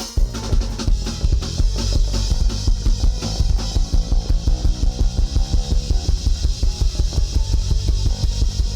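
Band music with drums and strong bass keeping a fast, steady beat of about four pulses a second.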